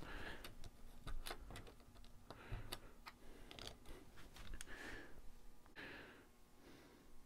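Plastic LEGO bricks clicking and tapping as they are handled and pressed onto a small truck build: a quick run of small, irregular clicks that thins out near the end.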